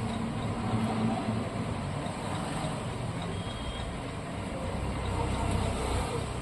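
Steady low engine rumble of a running vehicle, with no distinct knocks or clicks.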